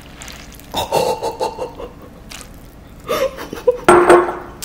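A woman laughing softly under her breath, in two short bursts.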